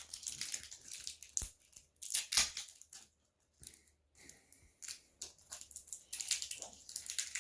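Toy packaging being torn and crinkled by hand in irregular rustling spurts, with a short lull about halfway through.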